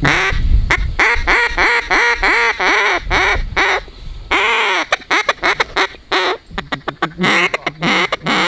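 Double-reed Delrin duck call blown by hand, sounding a series of quacks. A longer drawn-out quack comes about four seconds in, then a fast run of short clucks, then more quacks near the end.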